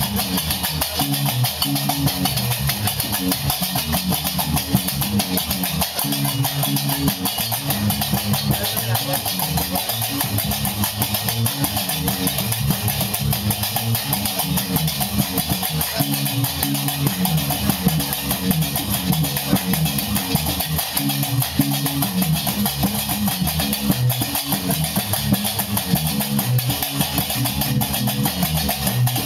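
Live gnawa music: a guembri, the three-string bass lute, plucking a repeating low riff over a fast, steady metallic clatter of qraqeb castanets.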